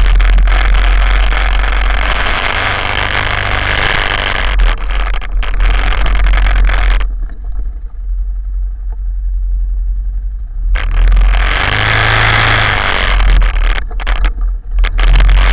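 Quad bike (ATV) engine running through mud and water, a loud, steady low drone. From about seven seconds in the engine goes quieter for several seconds, then it picks up again.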